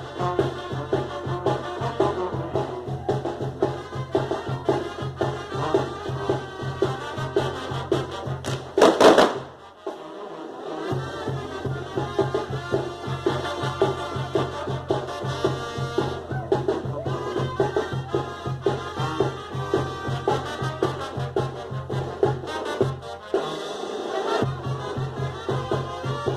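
Brass band music with trumpets, trombones and percussion over a pulsing bass, playing a Latin dance tune. About nine seconds in, a loud, short burst of noise briefly drowns out the music, and the bass drops out for a moment after it.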